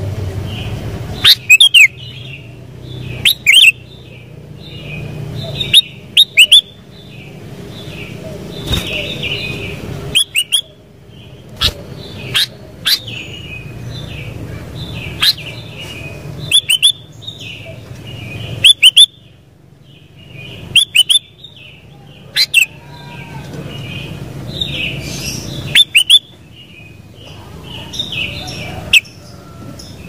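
Sooty-headed bulbul (kutilang) calling: a steady run of short chirps, broken every two or three seconds by very loud, sharp calls. A faint low rumble runs underneath.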